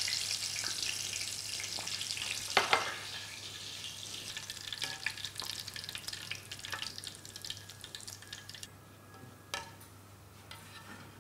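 Dried chilli rings, soaked in water beforehand, sizzling and crackling in hot frying oil as they are stirred with a metal skimmer. The sizzle dies down toward the end. A couple of sharp metal clinks come about two and a half seconds in.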